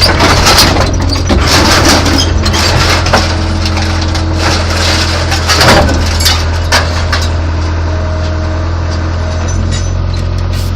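Caterpillar excavator's diesel engine running steadily, with irregular clanks and scrapes of metal as the bucket tears at a three-cylinder two-stroke outboard motor.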